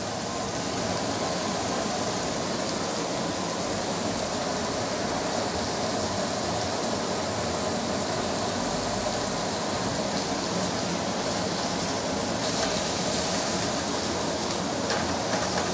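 Pork belly, marinated pork and kimchi sizzling on a hot electric grill plate: a steady, even hiss.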